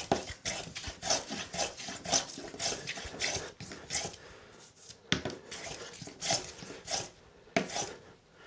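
Metal hand plane taking quick shaving strokes across a walnut board, flushing the cured super-glue-and-wood-dust filler around an inlay. The strokes come about two a second, pause briefly about four seconds in, then a few more follow, spaced further apart.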